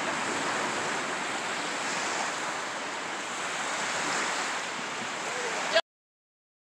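Surf washing on the beach with wind on the microphone, a steady rushing hiss that cuts off abruptly near the end.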